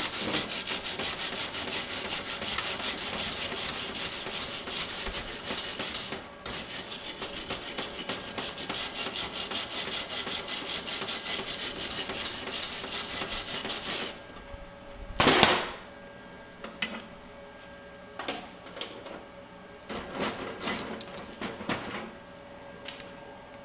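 HZXVOGEN HBM2280 MIG welder arc running on 6.7 mm aluminium at 21 volts with 0.9 mm wire: a steady fast crackling hiss that breaks off briefly about six seconds in, resumes, and stops about fourteen seconds in. A second later there is one short loud burst, then a few scattered small clicks.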